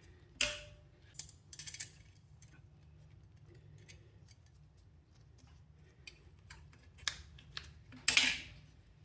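Steel exhaust springs being stretched and hooked to clamp the slip-on tip of an aftermarket motorcycle exhaust: scattered metallic clicks and snaps, the first with a brief ring.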